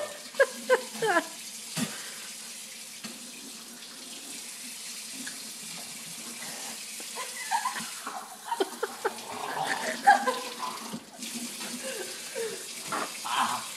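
Kitchen faucet running steadily into a stainless steel sink while people drink and rinse from the stream to wash cinnamon out of their mouths. Short bursts of voice come about a second in and again through the second half.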